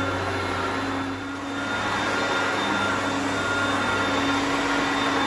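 Hoover Concept One upright vacuum cleaner running steadily, a constant motor hum and airflow rush with a brief dip in level about a second in.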